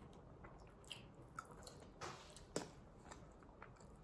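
Faint, close mouth sounds of a person chewing soft, sticky food: a few scattered wet smacks and clicks, the strongest about two and a half seconds in.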